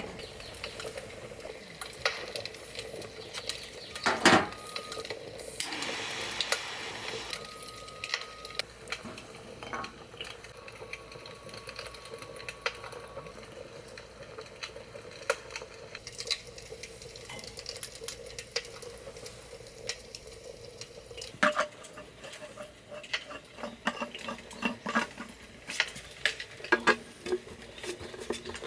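Dishes, pots and utensils clinking and clattering in camp cooking, with a brief rush of water about six seconds in.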